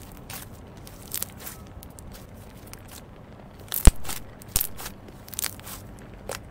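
Hands squeezing, pressing and stretching thick slime, making irregular crackling clicks and pops. The loudest, sharpest pop comes about four seconds in.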